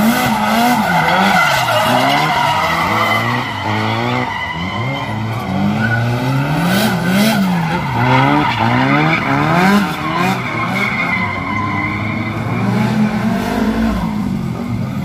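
Drift car's engine revving up and down, rising and falling about once a second, while its tyres squeal in a continuous skid.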